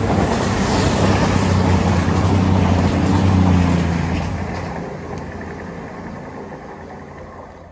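A CrossCountry Voyager diesel multiple unit passing close at speed: a steady underfloor diesel engine drone over wheel and rail rush. About four seconds in the engine note drops away and the rumble fades as the train recedes.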